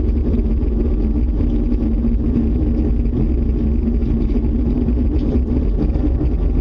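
Loud, steady low rumble from an unseen source, which the people recording first took for an approaching tornado.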